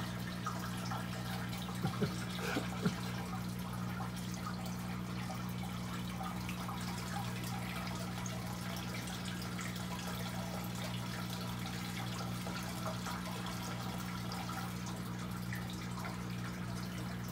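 Steady trickle of running water over a constant low electrical hum, with a few soft knocks about two to three seconds in.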